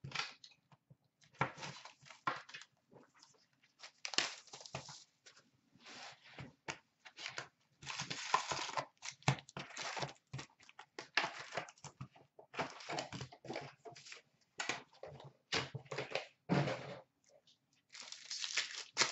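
Cardboard hobby box of trading cards being torn open by hand and its wrapped card packs pulled out and stacked. It is an irregular run of rustling, crinkling and tearing noises, with longer tearing stretches in the middle and near the end.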